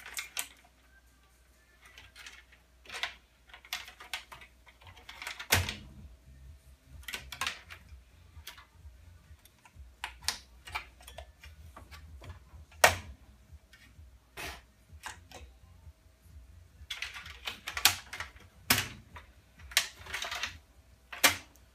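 Irregular clicks, taps and rattles of plastic and sheet-metal parts being handled as a desktop computer tower is taken apart, with a few louder knocks and a busier run of clicks near the end.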